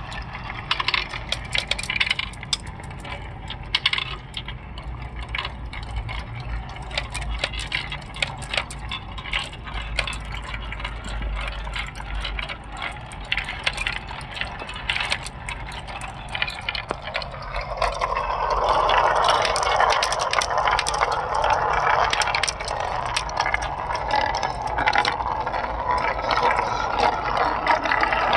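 Marbles clicking and clacking as they roll down a homemade marble run. About two-thirds of the way through it becomes a louder, denser rolling rattle, as if many marbles are on the track at once.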